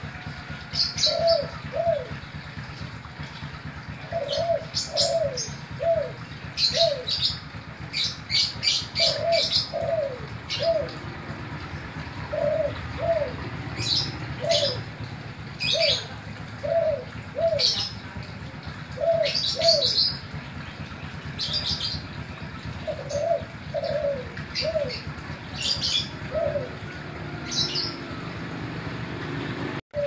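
Caged spotted dove cooing over and over: short, falling coo notes in runs of two or three, with pauses between runs. Sharp high chirps from other small birds sound throughout.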